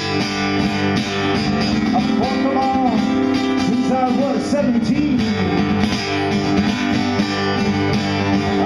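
Acoustic guitar played solo, a dense run of picked notes carrying on without a break, with a few bending melodic lines in the middle.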